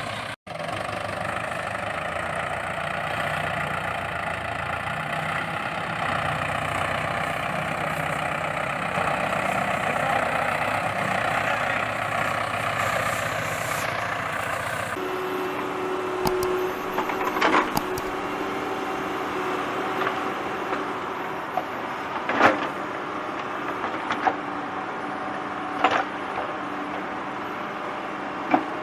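A motor running steadily; about halfway through it changes to a steadier hum, with a few sharp knocks in the second half.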